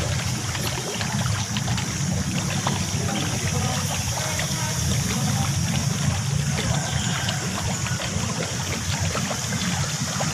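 Steady outdoor background noise: a low rumble with a hiss over it and scattered small clicks.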